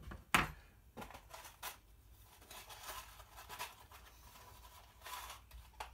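Hands rummaging in a small clear plastic tackle box for a fishing hook: light plastic clicks and rattles of small tackle, with one sharper knock about a third of a second in.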